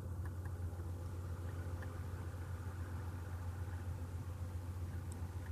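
Vehicle engine idling: a steady, even low hum.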